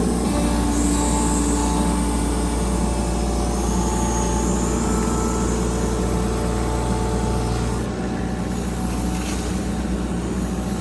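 Excavator's diesel engine running steadily, with a constant low hum; it eases off slightly about eight seconds in.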